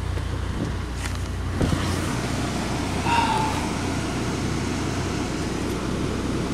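Saab idling, heard from inside the cabin once the door shuts with a knock about a second and a half in. A short electronic tone sounds near the middle, and clicks of the ignition key turning come right at the end as the engine is switched off.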